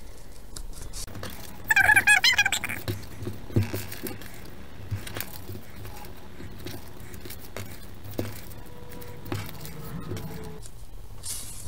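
Construction-paper strips being handled and folded on a tabletop, with faint rustles and light taps. About two seconds in comes a brief high-pitched wavering sound, the loudest thing here.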